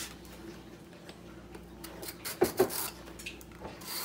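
Faint scraping and light clicks of a metal vegetable peeler taking the skin off an Italian gourd over a plastic cutting board, with two louder knocks about two and a half seconds in.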